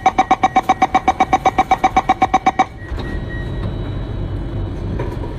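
North East Line MRT train's door-closing warning tone: rapid, evenly spaced beeps at one pitch, about nine a second, signalling that the doors are shutting, which stop about two and a half seconds in. A steady low rumble of the train follows.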